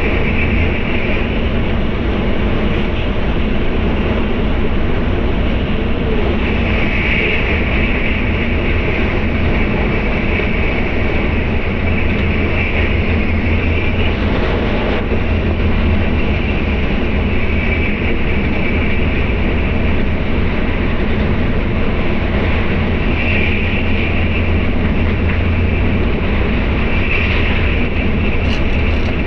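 Steady running noise of a Tokaido Shinkansen bullet train heard inside the passenger cabin: a deep rumble under a hiss that swells and fades every few seconds.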